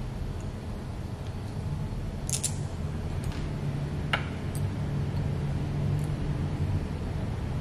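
A few small sharp metal clicks from a hex key and screws being worked into a pump's metal mounting bracket, the loudest about four seconds in, over a steady low hum.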